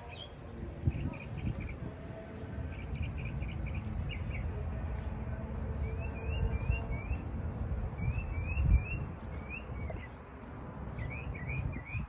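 Small songbirds chirping in quick runs of three or four short rising notes, repeated several times, over a steady low rumble.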